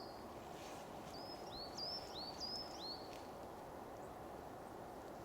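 A songbird sings one short phrase of repeated high, upward-hooked chirps about a second in, over a steady background hiss of outdoor ambience.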